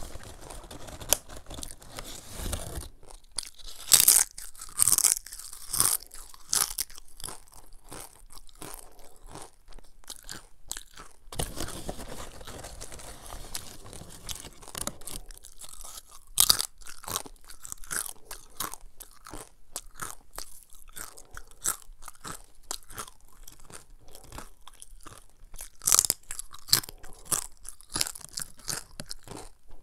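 Crunching and chewing of crisp cassava chips, with loud bite bursts every several seconds, strongest about four to seven seconds in, again around the middle and near the end. A crinkly chip bag rustles as a hand reaches into it.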